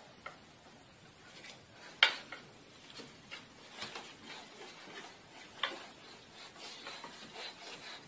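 Scattered light knocks and clicks from a wooden crib as a toddler climbs down over its side, with soft blanket rustling; the sharpest knocks come about two seconds in and again at five to six seconds.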